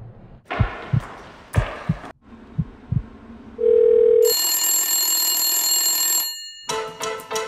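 A heartbeat sound effect thumps in pairs about once a second, with two short hissy rushes. It is followed by a brief beep and then a loud telephone ring lasting about two seconds. Music starts near the end.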